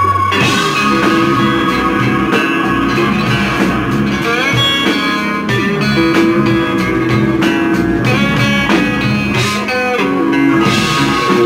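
Background music led by guitar, with plucked notes over a steady accompaniment.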